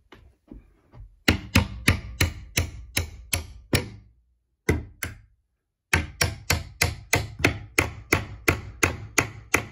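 Hammer tapping a steel door-hinge pin back down through a hinge-pin doorstop and the hinge knuckles: a few light taps, then two long runs of quick metal-on-metal blows, about four a second, with a break of about two seconds between them.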